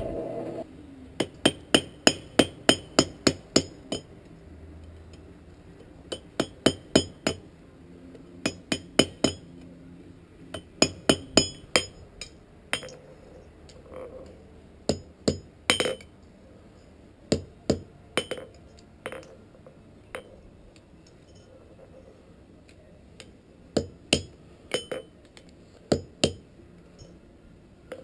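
Blacksmith's hammer striking a forge-welded iron ring on the anvil, ringing blows in quick runs of several strikes (about four a second at first) with short pauses between, as the ring is hammered back into round.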